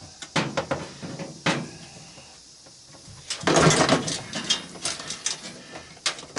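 Scattered clicks and knocks of metal and plastic parts being worked loose inside a washing machine being torn down. There is a louder rattling scrape lasting about a second, a bit past the middle.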